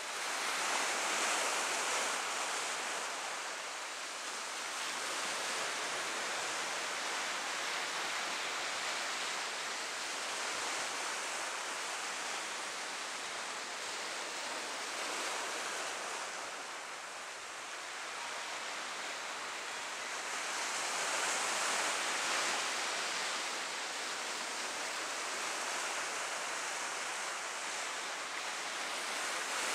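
Sea surf breaking and washing over rocks, a steady rushing wash that swells louder near the start and again about two-thirds of the way through.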